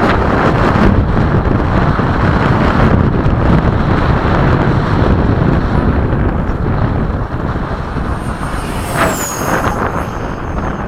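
Strong wind buffeting the microphone, with the thin high whine of an RC electric ducted-fan jet coming in during the second half and dropping in pitch about nine seconds in.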